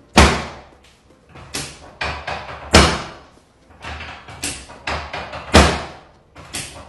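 A series of about ten sharp thumps and slaps, irregularly spaced, each dying away over about half a second; the loudest come near the start, about three seconds in and about five and a half seconds in.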